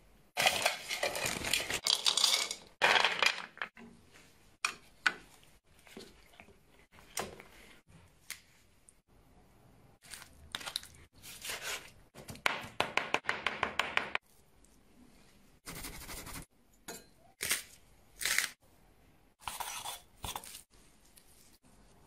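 Food-preparation handling sounds: scattered clinks, scrapes and tearing or crinkling noises in short bursts with quiet pauses, with a quick run of ticks about two-thirds of the way through.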